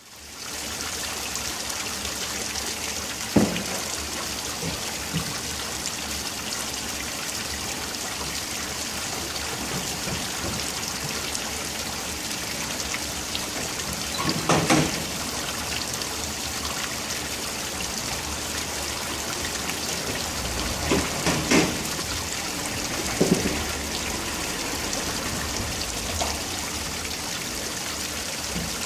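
Tiered stone fountain splashing steadily as its jets and overflow streams fall into the basin, with a few short louder sounds spread through it.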